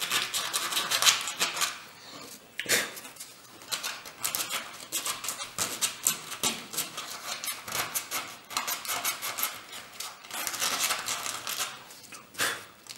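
A hand-held blade cutting through a model glider's wing skin along a template, in quick, irregular scraping strokes, opening the hole for an aileron servo frame.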